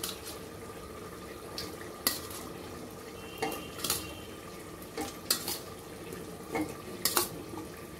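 Steel bowl and utensils clinking against an aluminium pressure cooker as pieces of boiled beef liver are tipped and scraped in: about half a dozen sharp, scattered clinks. Under them the masala fries softly in oil.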